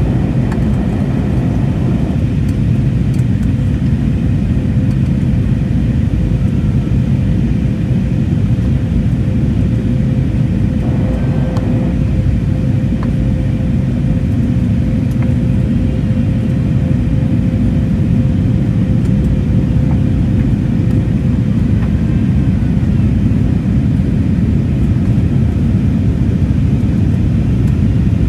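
Steady in-flight cabin noise inside an Airbus A320neo during descent: an even, low roar of airflow and engines. A faint steady hum comes in about two seconds in and fades out about twenty seconds in.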